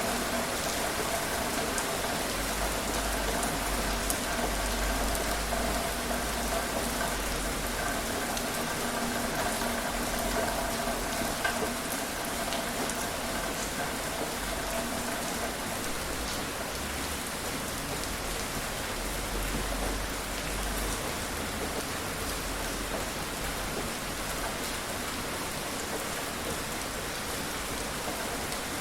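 Steady rainfall, a constant wash with scattered individual drops ticking. A faint steady hum sits under it and fades out about halfway through.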